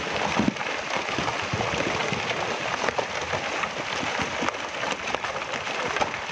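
Landslide on a mountainside: loose rock and debris tumbling down the slope, a steady, dense crackling clatter of many small impacts.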